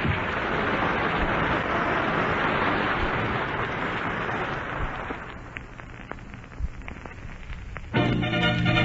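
Studio audience applauding, thinning out after about five seconds to scattered claps; a studio orchestra strikes up near the end.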